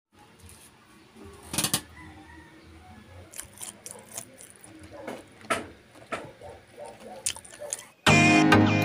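Scattered crisp crackles and clicks as crunchy fried banana fritters on bamboo skewers are handled on a paper-towel-lined plate, the loudest about one and a half seconds in. Background music starts loudly near the end.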